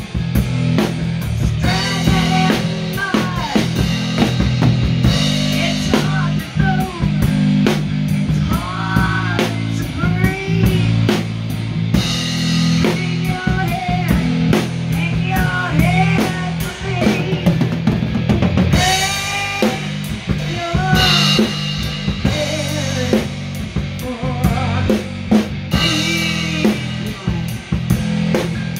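Drum kit played close up in a driving rock beat, with bass drum, snare and cymbals, alongside guitar and bass with bending lead notes.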